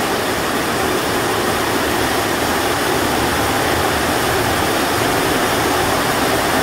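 Heavy rain falling on a corrugated sheet-metal roof, a steady, even hiss.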